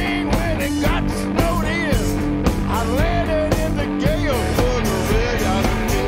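Live blues-rock trio playing: electric guitar, bass guitar and drum kit, with a lead line that bends up and down in pitch over a steady bass and drums.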